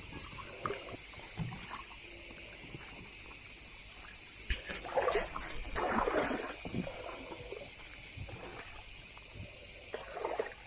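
Footsteps crunching along a dry dirt path and brushing through dry scrub and palm fronds, loudest from about four and a half to seven seconds in. A steady high chirring of insects runs behind them.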